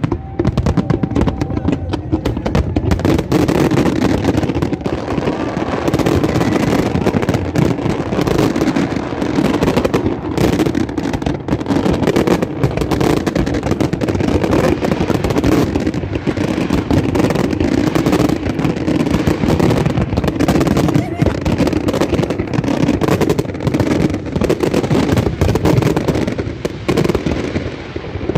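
Aerial fireworks going off in a continuous barrage of bangs and crackles, with many overlapping bursts every second, over the indistinct chatter of a crowd.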